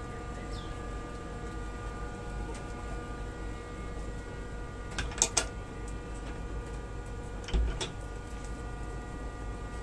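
Steady hum made of several fixed tones, with two brief rattles about five and seven and a half seconds in as rabbits hop across the wire-mesh cage floor.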